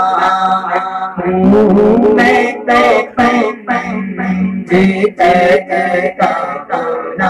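A man singing an Urdu naat in long, wavering held lines, amplified through a PA loudspeaker.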